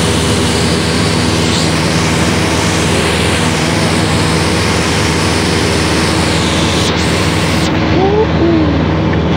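Steady in-cabin drone of a light high-wing airplane's engine and propeller in flight, an even rush of noise with a constant engine hum under it. A few brief gliding squeaky tones come in near the end.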